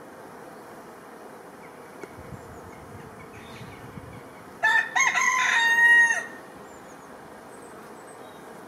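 A rooster crows once, a loud call of a few short rising notes and then a held note dropping off at the end, starting a little past halfway and lasting under two seconds, over a steady background hiss.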